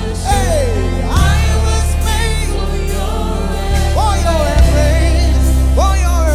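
Live gospel worship band: male voices singing a slow worship song over keyboards and bass guitar, with sustained low bass notes and the lead vocal swooping up into high notes about four and six seconds in.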